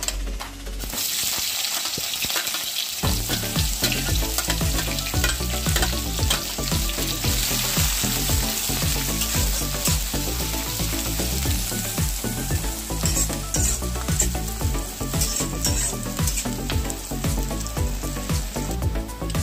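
Food frying in hot oil in a cooking pan, a steady sizzle that starts about a second in, with a few utensil clicks from stirring later on.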